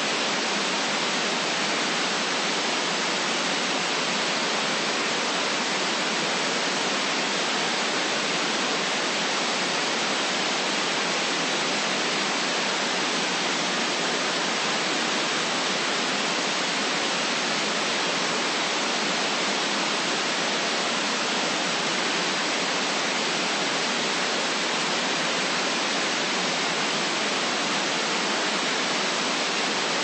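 Steady white noise: an even, unchanging hiss with little bass and no rhythm or events.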